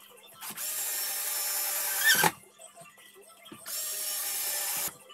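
Homemade grinding machine running in two short bursts, the first about two seconds long and ending in a loud falling whine, the second just over a second; each starts and stops abruptly.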